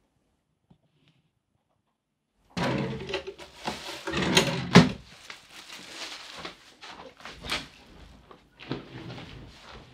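A desk drawer pulled open about two and a half seconds in and rummaged through with a clatter of knocks, the loudest just before five seconds. Then quieter rustling and clicks, and a door handle worked and the door opened near the end.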